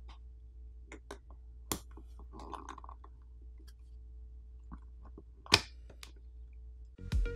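Scattered light clicks and taps of a plastic pry pick and suction cup working against the glass and frame of a phone's outer screen, with a short scrape about two and a half seconds in and a sharper snap about five and a half seconds in. Electronic music starts near the end.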